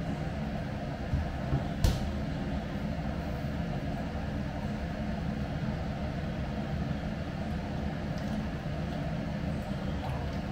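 Steady low rumble with a hiss over it, from kitchen appliances running at the stove, with one sharp knock about two seconds in.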